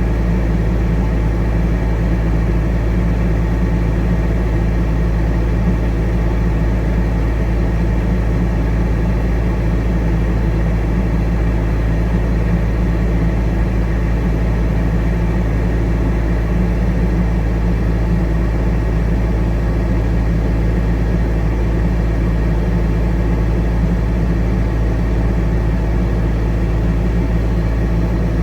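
Heavy diesel engine running steadily at a constant speed, a low, even hum with no changes in pitch, while the load of sawdust is unloaded.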